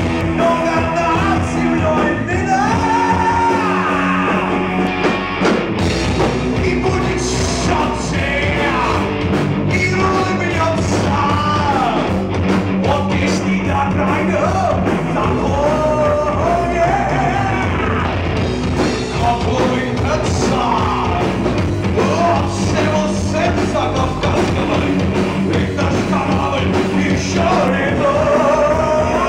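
Rock band playing live: a man singing lead over electric guitar, bass guitar and drum kit.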